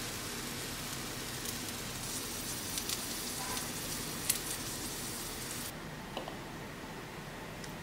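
Quiet kitchen handling sounds: a faint hiss and a few light taps as a spatula lays a folded omelette on a ceramic plate. The hiss drops out about two thirds of the way through, and a couple of soft clicks follow as a spoon drops thick yogurt into a wooden bowl.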